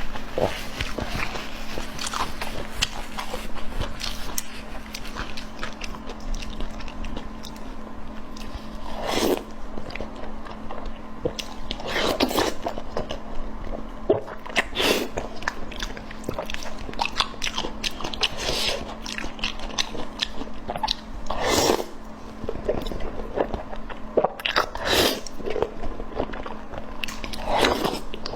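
Close-up eating sounds of a person chewing and biting food: a steady run of small mouth clicks, broken every few seconds by a louder bite.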